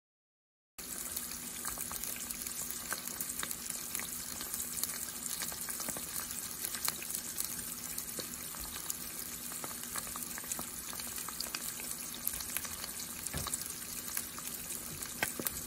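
Eggs frying in hot oil in a pan: a steady sizzle full of small pops and crackles, starting suddenly about a second in, with one louder pop near the end.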